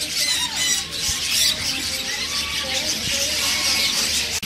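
Macaw parrots chattering and squawking, a steady stream of short, high, gliding calls with many birds overlapping.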